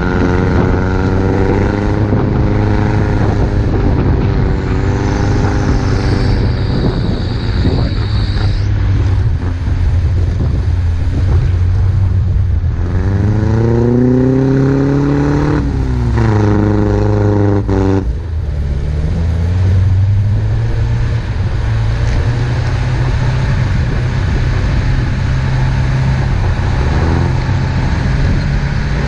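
Engine of an off-road 4x4 heard from inside its cabin while driving through deep snow. It runs steadily under load, with its pitch rising and falling with the throttle. About halfway it revs up for a couple of seconds, then falls away.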